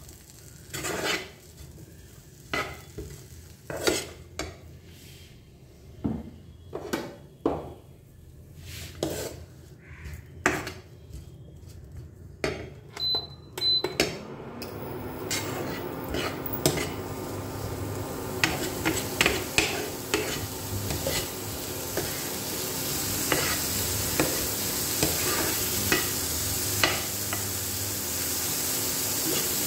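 Plastic spatula stirring and scraping sweetcorn and chopped vegetables in a non-stick frying pan, in separate strokes. About halfway through an induction cooktop gives a short high double beep, after which its steady hum and a growing sizzle set in as the pan heats, under more stirring.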